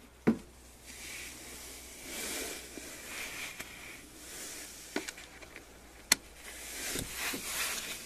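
Hand-worked stay arm and side knob of an aluminium awning window: a few sharp clicks, the loudest near the start and about six seconds in, between soft sliding and rubbing sounds as the hardware moves smoothly.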